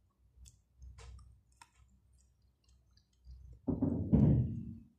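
Soft wet mouth clicks and smacks from eating pieces of ripe mango. About three and a half seconds in comes a much louder low, muffled sound lasting about a second.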